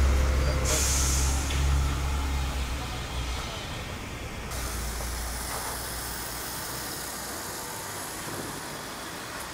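A large vehicle's engine running at idle, with a short burst of air hiss like an air brake about a second in. The engine hum fades over the next few seconds, leaving a steady, fainter hiss.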